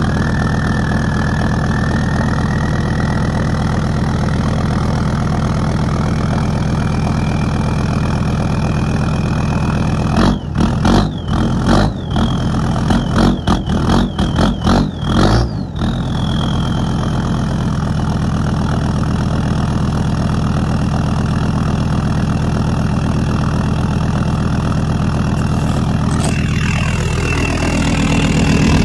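Land Rover Discovery 2 Td5 2.5-litre five-cylinder turbodiesel idling steadily just after a cold start, with a faint high whine that rises slowly in pitch over the first ten seconds. A spell of irregular crackling breaks in about ten seconds in, and the engine is louder near the end.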